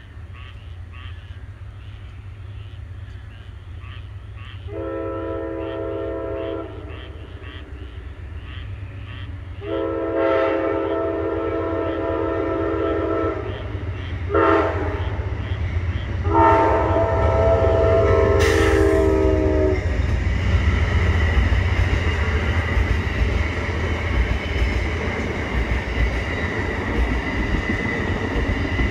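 Amtrak diesel locomotive horn sounding for a grade crossing in the standard long, long, short, long pattern, over a faint fast regular dinging from a crossing bell. Once the last blast ends, about twenty seconds in, the train passes close by with a steady rumble of engines and wheels on rail.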